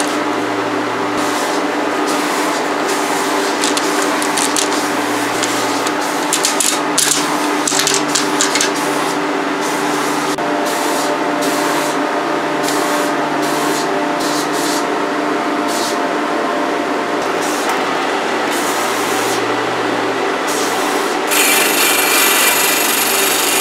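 A small table saw's motor running steadily while newspaper wrapping crinkles as clear acrylic rods are unwrapped. About 21 seconds in, a high hissing rasp begins as the spinning blade cuts into an acrylic rod.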